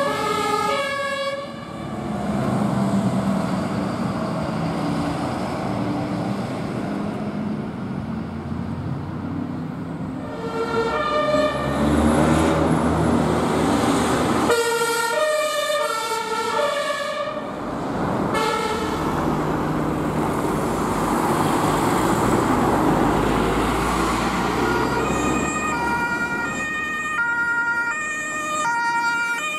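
Emergency vehicles' German two-tone sirens (Martinshorn), stepping back and forth between a high and a low note, pass by on runs. The siren is heard briefly at the start, again for several seconds in the middle, and from near the end on. Engine and road noise of passing vehicles fill the gaps.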